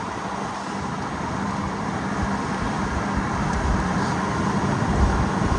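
Steady road and engine noise heard inside a moving car: a low, even rumble with tyre hiss and a faint hum.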